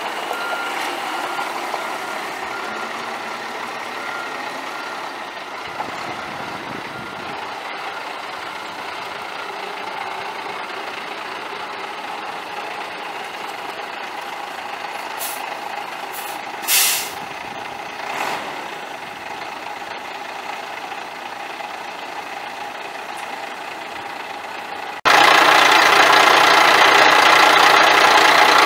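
International 4900 dump truck: the backup alarm beeps briefly at the start over the running truck, a few short air hisses from the air brakes come through the middle, and about 25 seconds in the sound cuts abruptly to the much louder DT466 inline-six diesel idling.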